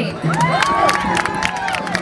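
Audience cheering, with many voices calling out at once and scattered clapping.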